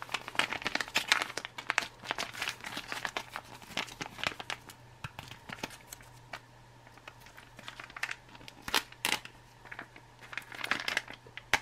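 Foil-laminate retort pouch crinkling and crackling as it is handled in the hands, then torn open, with a couple of sharper rips about three-quarters of the way through.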